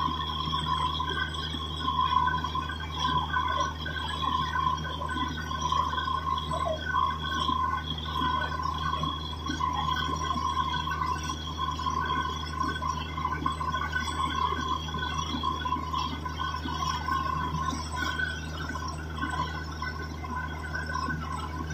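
Borewell drilling rig running, with water and rock slurry gushing and splashing out of the borehole around the drill pipe: the bore is yielding water. Under the splashing there is a steady low hum and a steady high whine from the rig.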